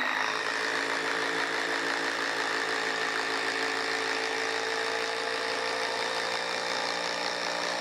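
DeWalt cordless impact driver hammering steadily under full load as it drives an 8-inch TimberLok structural screw into dense wood.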